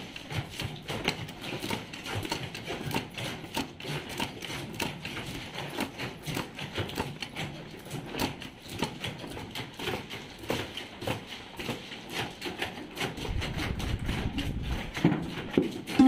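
Hand-operated cashew-shell cutting machines clacking in a rapid, irregular stream as steamed cashew nuts are cut open.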